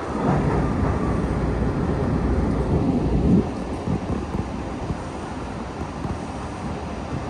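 Siemens-built MBTA Blue Line subway car rumbling along the rails, heard from inside the car as it pulls into a station. The rumble is louder at first and drops off fairly suddenly about three and a half seconds in.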